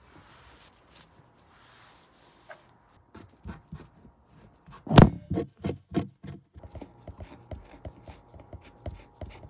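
Hands rubbing and dabbing at a stain on an embroidered cotton shirt with a tissue: a run of short scrubbing strokes starting about three seconds in, the loudest about five seconds in, then quicker, more even strokes.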